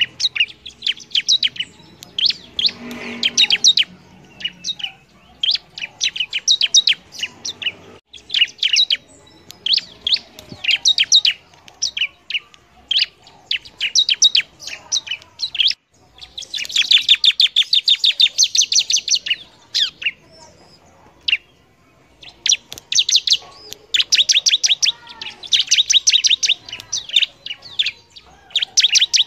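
Ciblek (bar-winged prinia) singing: repeated phrases of rapid, sharp high chirps, each burst lasting one to three seconds with short pauses between, one longer, denser trill about halfway through.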